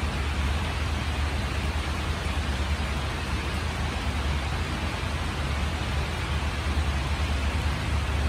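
Rain falling steadily: an even hiss with a constant low rumble beneath it.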